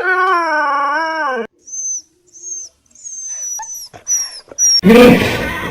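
A dog howling for about a second and a half, wavering and falling in pitch at the end. Then comes a run of short, very high whistled chirps, and near the end a loud, harsh cry sets in.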